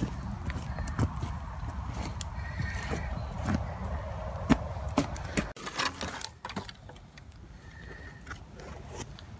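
Someone moving and handling things in woodland undergrowth: scattered clicks, knocks and twig snaps, with wind rumbling on the microphone that stops abruptly about halfway through.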